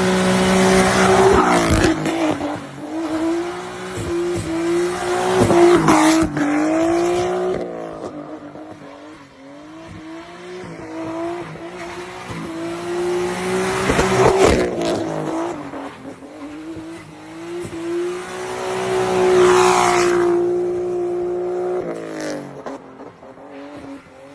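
Turbocharged car engine driven hard. Its pitch holds steady for several seconds at a time between loud surges and swings in revs, about four times, with a drop in revs about 22 seconds in.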